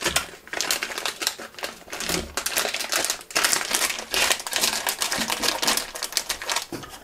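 Shiny plastic packaging bag crinkling as it is handled, a dense, irregular run of crackles with brief pauses.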